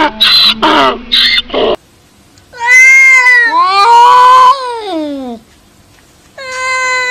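A donkey braying in rapid, rhythmic hee-haw pulses that cut off about two seconds in. Then a cat gives long, drawn-out yowls that slide down in pitch: two in a row, and a third beginning near the end. These are the warning yowls of a cat in a standoff with another cat.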